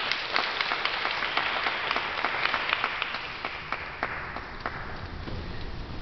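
Applause: a dense patter of hand claps that thins out and fades away about four seconds in.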